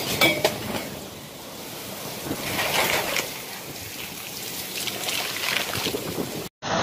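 Heavy rain driven by gusting storm wind: a steady rushing noise that swells and eases, with wind buffeting the microphone. A few sharp knocks come in the first half-second, and the sound drops out briefly near the end.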